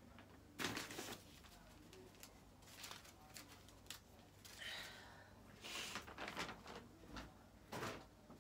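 Brown paper shopping bag rustling faintly in a few short bursts as a garment is pulled out of it.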